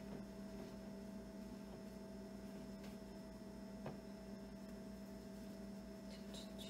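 Steady low electrical hum, with a faint tap about four seconds in and a few soft handling sounds near the end.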